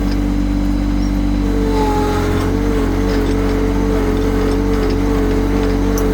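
Yanmar compact tractor's diesel engine running steadily at an even speed.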